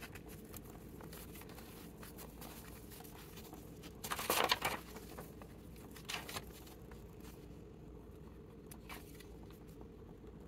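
Paper being handled and shifted by hand: faint rustles and light taps, with one louder paper rustle about four seconds in, over a low steady hum.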